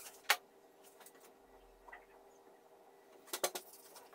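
Plastic palmrest of a Toshiba Satellite C660 laptop being handled and wiped with a tissue: a sharp click about a third of a second in, then a quick cluster of clicks near the end.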